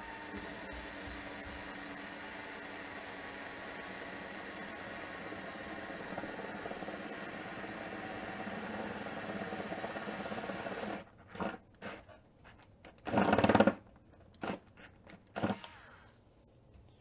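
Milwaukee M4 4-volt cordless screwdriver, fitted with a twist drill bit, running steadily as it drills through copper pipe: a steady motor whine that stops about eleven seconds in. Then a few short, loud noises follow, the loudest about thirteen seconds in, as the bit wants to catch right at the breakthrough.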